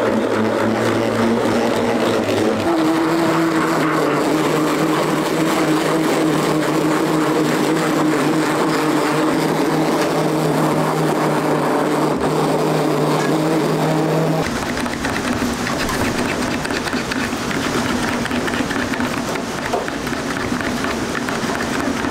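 Hand-held immersion blender motor running as it purées whole peeled tomatoes into sauce, with a steady whine that shifts in pitch about three seconds in. It cuts off suddenly about two-thirds of the way through, leaving a steady background noise.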